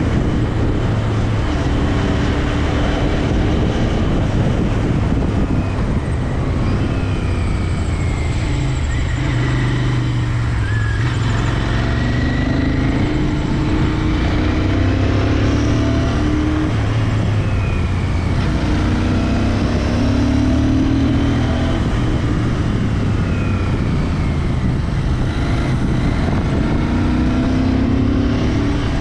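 Royal Enfield Interceptor 650's 648 cc parallel-twin engine running under load on the move, its pitch climbing and then dropping back several times as it pulls through the gears.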